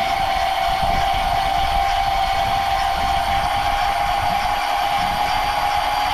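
Electric deep-drop fishing reel whining steadily as it winds a fish up from deep water, over a low rumble.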